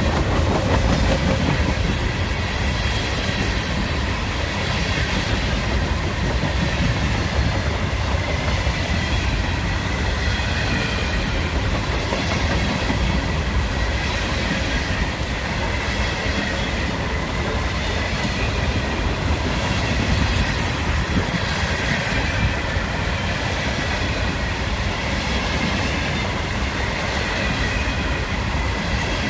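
CSX freight train's container cars rolling past: a steady rumble and clatter of steel wheels on the rails, with a faint high ringing tone above it.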